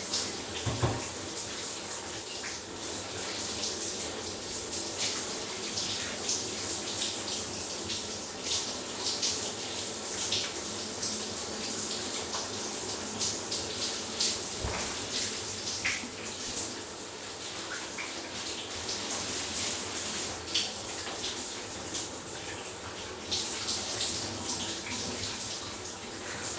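Shower running while someone showers: a steady spray of water with constant small, irregular splashes. There are two dull knocks, one about a second in and one about halfway through.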